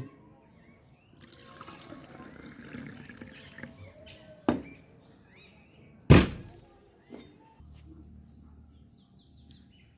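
Water poured from a steel tumbler into a small steel cup for about three seconds, followed by sharp metallic knocks, the loudest about six seconds in, as steel vessels are set down on a hard table. A faint low steady hum follows near the end.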